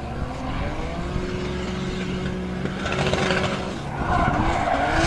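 Turbocharged BMW E36 drift car's engine revving up and down as it drifts through a corner, with tyre squeal and hiss building toward the end.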